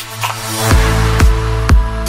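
Electronic dance music: a rising noise sweep builds into a drop with deep bass and a kick drum on every beat, about two a second.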